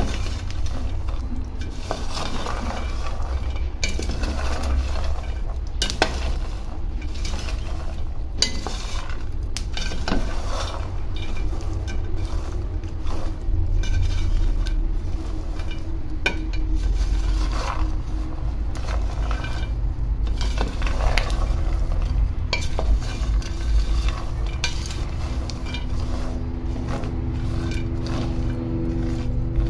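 Peanuts being stirred in a dry pan as they roast, the kernels rattling and scraping against the pan with scattered crackles. The crackling is the sign that the peanuts are almost ready.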